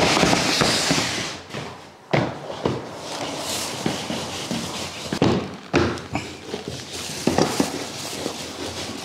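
A large plastic basin scraping and being set down on a wooden work table, with a sharp knock about two seconds in. Irregular knocks and thuds of dough being rolled and handled follow.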